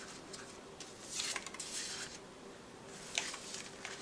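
Paper and cardstock being handled: a sliding, rustling brush about a second in, as of a photo mat or tag drawn from a paper pocket, and a light click a little after three seconds. A faint steady hum lies underneath.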